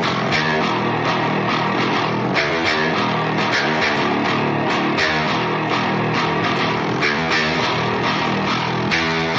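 Rock music with guitar over a steady beat.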